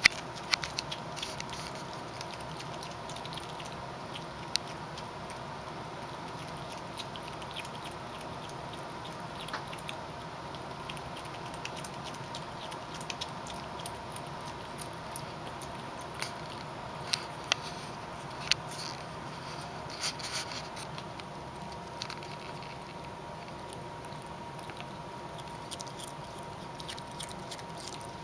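A small animal chewing and crunching on vegetables: irregular sharp crunches and clicks, a few louder than the rest, over a faint steady hum.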